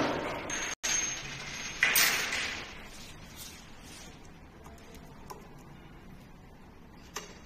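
Scraping and clattering as the e-bike's front fork and headset parts are handled, loudest in the first two and a half seconds, then quiet small clicks of parts being fitted on the steerer tube, with a sharp click near the end.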